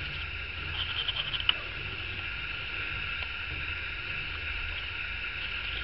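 Steady background drone, high-pitched with a low hum beneath, with a few faint light taps about a second and a half in.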